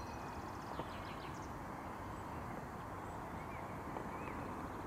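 Steady rush of river water with a few faint, high chirps over it.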